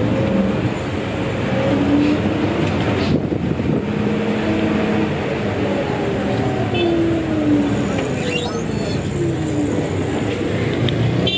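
Hino RG bus's diesel engine running on the road, heard from inside the cabin, its pitch rising and falling several times as it changes speed, over a steady rumble of road noise.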